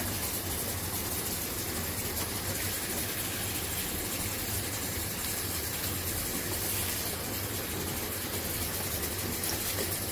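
Tap water running steadily into a stainless steel sink, the stream splashing over napa cabbage leaves, with a low steady hum underneath.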